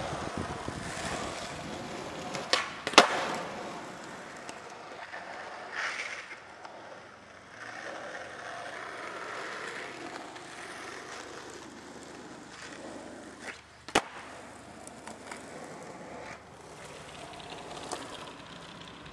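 Skateboard wheels rolling on asphalt, with a few sharp clacks of the board on the pavement, the loudest about three seconds in and another near fourteen seconds.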